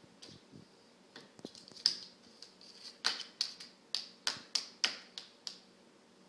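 A young child tapping out sharp taps with an object at the lunch table, a few scattered taps at first, then a steady run of about three a second from about three seconds in.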